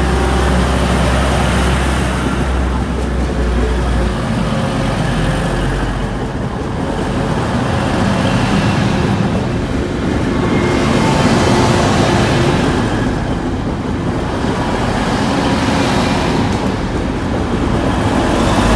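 Two coupled Class 185 diesel multiple units passing at speed over a level crossing: a loud, continuous rumble of diesel engines and steel wheels on the rails, swelling a little as carriages go by.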